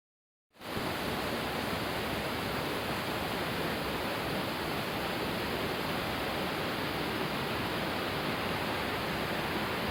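Small waterfall: a steady rush of falling water that starts about half a second in and holds even.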